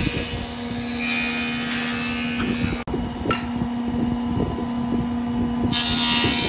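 A woodworking machine running steadily in the workshop, a constant low hum with hiss. The sound changes abruptly twice.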